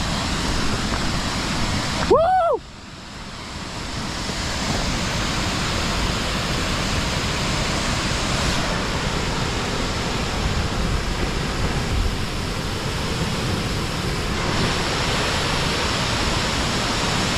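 Steady rush of a monsoon waterfall's falling water. About two seconds in, a short whistle-like tone rises and falls, after which the rush drops away suddenly and builds back up over a couple of seconds.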